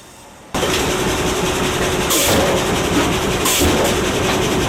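Sawmill head rig running: a large bandsaw cutting a log as it is fed through, a loud steady mechanical noise with a constant whine. It starts suddenly about half a second in, with two brief hissing surges, around two and three and a half seconds in.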